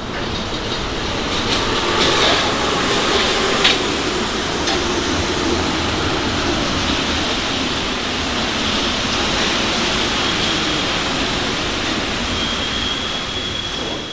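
Paris Métro MP73 rubber-tyred train running into the station and braking to a stop, a steady rumble that swells as it passes along the platform. Two sharp clacks come about two and four seconds in, and a steady high tone sets in near the end as it halts.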